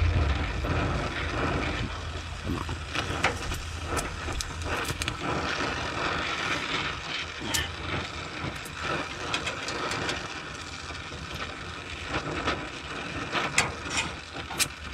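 Stick (arc) welder crackling and sizzling as the electrode rod burns a weld onto steel, an uneven crackle with frequent sharp pops and a few louder ones near the end.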